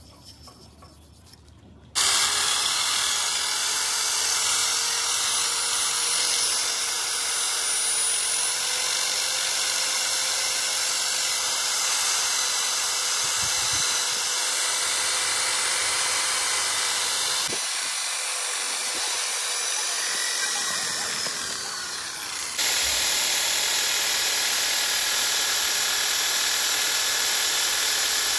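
A workshop tool running with a loud, steady hiss. It starts abruptly about two seconds in and changes character suddenly about twenty-two seconds in.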